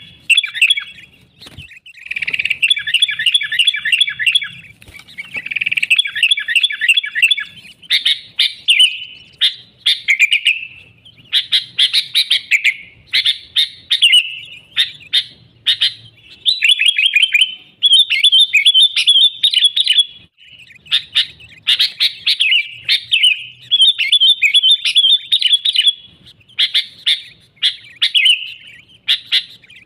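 Sooty-headed bulbul (kutilang) singing busily: loud, rapid chattering phrases of a second or two each, one after another with only short pauses between.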